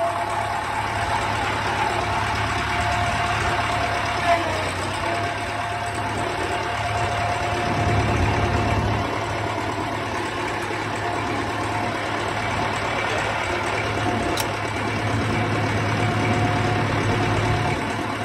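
An engine idling steadily, with a constant whine held over the low running hum.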